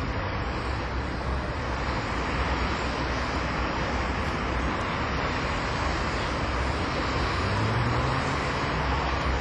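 Steady outdoor background noise: an even rush with a low rumble, and a low hum that rises slightly near the end.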